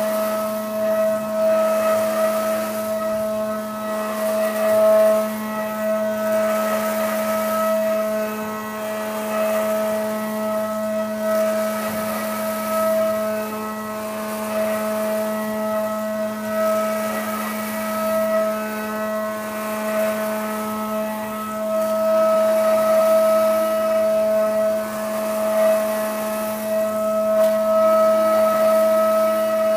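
Haas VF-4SS vertical machining center cutting aluminium with a carbide end mill in a heavy high-speed waveform roughing pass: a steady high cutting whine with overtones over a lower hum, and the hiss of flood coolant spray. The whine swells and eases a little in loudness as the tool moves through the pocket.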